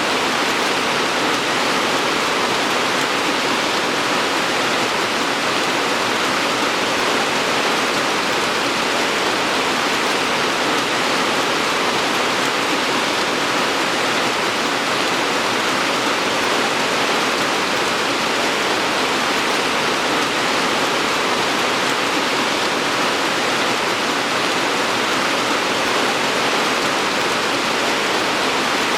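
Steady, dense rainfall: an even hiss with no distinct drops or breaks.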